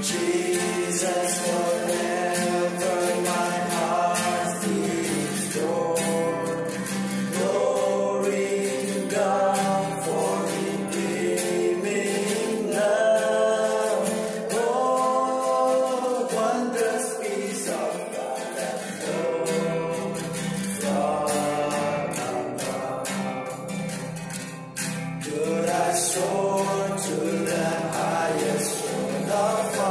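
Male vocal quartet singing a gospel song together into microphones.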